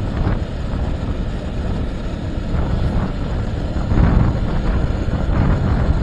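Wind rushing over the microphone of a moving motorcycle, with the low rumble of the ride underneath. It swells briefly about four seconds in.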